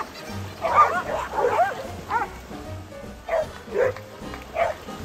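Dogs yipping and yelping excitedly in play: a quick run of short high yelps in the first two seconds, then single yelps every half second or so. Background music with a steady low beat runs underneath.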